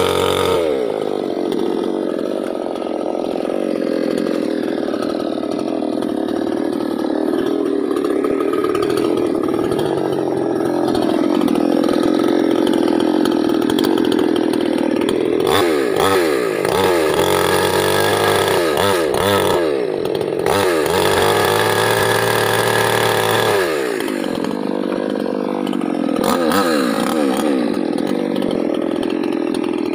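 Mini petrol chainsaw running at high revs, likely cutting teak. Its pitch holds high, then sags and swings up and down a few times past the middle and again a little later.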